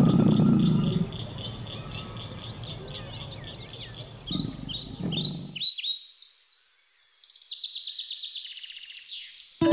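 Wild birds chirping and calling in quick repeated high notes, with a rapid run of chirps in the second half. A loud low rumble runs for about the first second.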